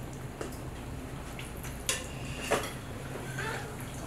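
A few light knocks and clinks of a metal pot and kitchen utensils as bacon fat is scooped off, over a steady low hum.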